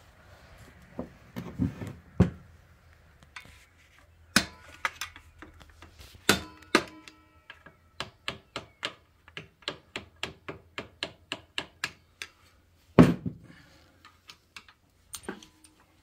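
Hammer beating on a bolt used as a drift to drive a motorcycle's rear axle back through the wheel hub. A few heavy blows, then a run of lighter, quicker strikes at about three a second, and one hard blow near the end, each with a short metallic ring.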